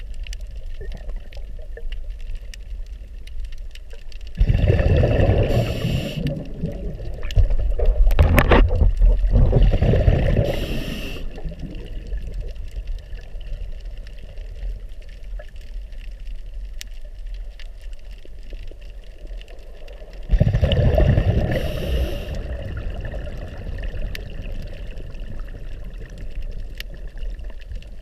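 A diver's exhaled breath bubbling out, heard underwater: three bursts of bubbling, about 4, 7 and 20 seconds in, the middle one the loudest and longest, over a steady low underwater rumble.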